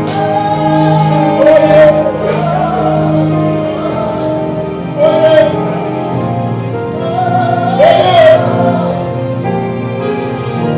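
Live gospel worship music: sustained keyboard chords under a singer's voice that swells in a few held, wavering phrases.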